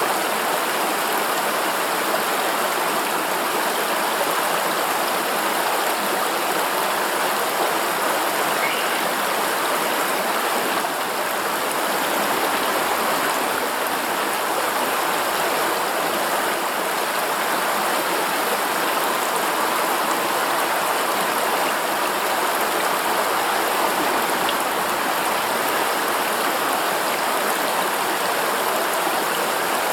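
Forest river running steadily: a constant rushing of water over stones, even in level throughout.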